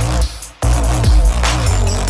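Electronic dance music with heavy bass and a pounding beat. It drops away briefly a quarter of a second in, then slams back in about half a second later.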